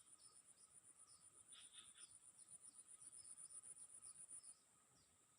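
Faint insect chirping: a high, evenly pulsed trill of about nine pulses a second that stops near the end, with softer short falling chirps behind it.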